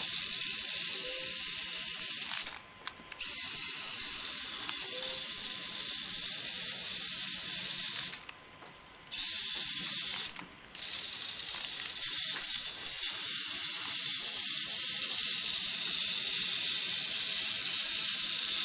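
Cheap continuous-rotation hobby servos driving a small wheeled robot that carries a wooden tray and a water bottle: a steady high gear whir that stops three times, for a second or less each, as the robot halts and moves off again.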